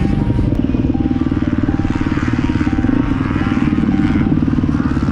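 KTM 250 SX-F four-stroke single-cylinder motocross engine running steadily at low revs as the bike rolls slowly along.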